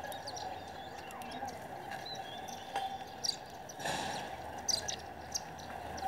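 House sparrows chirping in short scattered calls over a steady background of outdoor noise, with a brief rush of noise about four seconds in.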